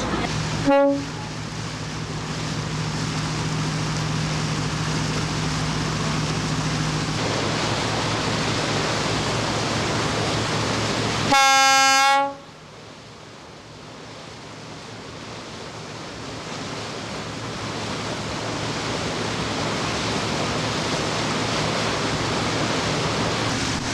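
A boat horn sounds twice: a short toot about a second in, then a longer blast of about a second near the middle, each one steady pitched tone. Between them the motor yacht's engine hums under steady wind and water noise.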